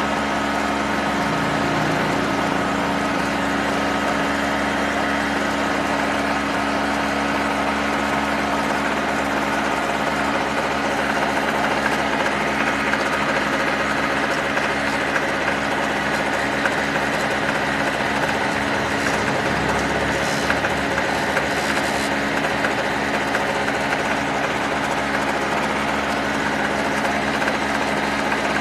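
Small two-stroke engine of a United Power GG950DC portable generator running steadily at idle.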